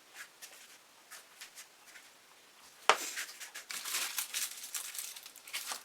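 Faint light ticks, then a sharp click about three seconds in, followed by a run of quick scratching and scraping as painting tools are handled.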